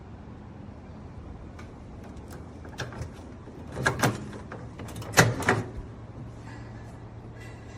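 A microwave oven door clunking in a few knocks and clicks around the middle, over a steady low hum.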